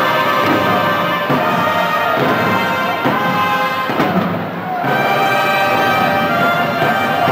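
Brass-led music with long held notes and a beat about once a second.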